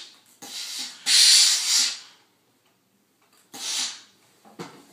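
Steam iron blasting steam into a jacket sleeve: three hissing bursts, the longest and loudest about a second in and a shorter one near the end, followed by a light knock.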